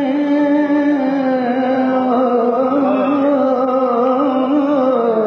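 A man singing a naat without instruments, holding one long note with a slow waver that drifts slightly lower in pitch.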